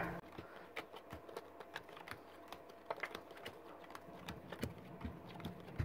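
Playing cards dealt face up onto a felt mat in sped-up footage: a quick, irregular run of faint clicks and snaps as the cards come off the deck and land on the piles.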